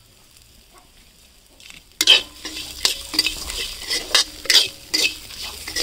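Steel spoon stirring dry-roasted peanuts, dal and red chillies in a black iron kadai, scraping and knocking against the pan in quick strokes about three a second. The stirring starts suddenly about two seconds in.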